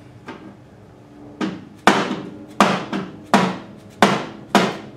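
Hammer blows on metal driving a motorcycle exhaust gasket deeper into its seat: a light tap, then six sharp strikes about two-thirds of a second apart, each with a short ring.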